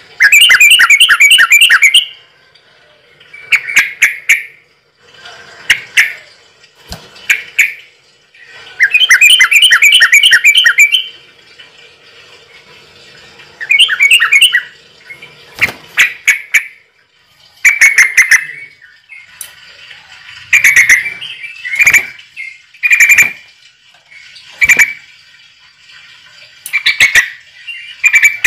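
Bird calling loudly and repeatedly: rapid trills of about two seconds near the start and again about nine seconds in, with many short single calls in between.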